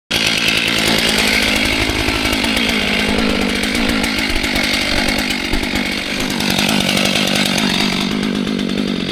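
Two-stroke chainsaw running loud and steady at high speed, cutting in suddenly at the start with a slight dip about six seconds in.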